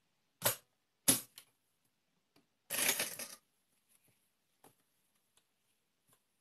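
Fabric being handled and shifted at the sewing machine: two short rustles about half a second and a second in, then a longer, louder rustle around three seconds in, with a few faint ticks after.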